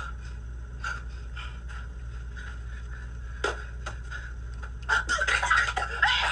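A woman coughing and spluttering from a mouthful of cinnamon, loudest in the last second or so, over a steady low hum, with a few short knocks earlier on, such as a water pitcher set on the counter.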